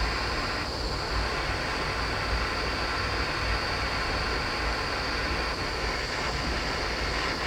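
Gas torch flame burning with a steady rushing hiss, heating brass for soldering.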